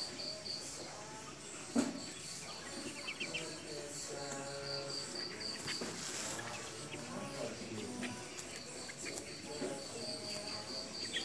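Outdoor background ambience: a high, insect-like chirp pulsing in runs, with scattered short bird chirps and faint low calls. There is one sharp click a little under two seconds in.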